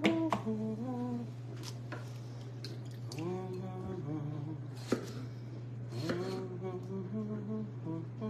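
A woman humming a tune to herself in slow held phrases, with a few sharp knocks of a kitchen knife on a wooden cutting board as she cuts tomatoes.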